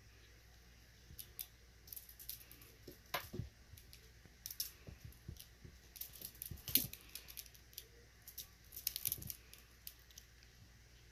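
Faint, irregular scratchy rustling and clicking of a young Russian Blue kitten's claws and paws scrabbling on a fleece blanket as it plays, loudest about seven seconds in.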